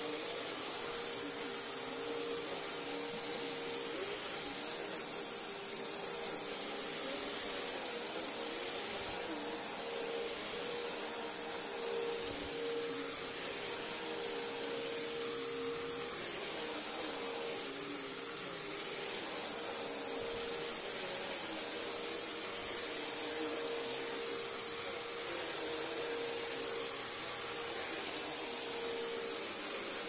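Bissell CleanView upright vacuum cleaner running steadily as it is pushed over a rug: a constant motor hum with a thin high whine over airflow hiss.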